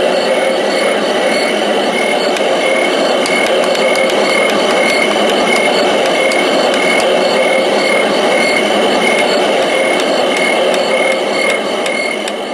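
Homedics Sound Spa Rejuvenate white noise machine playing its 'summer night' track: insect chirping that sounds like cicadas, pulsing about twice a second, over a steady muffled hum like white noise beneath.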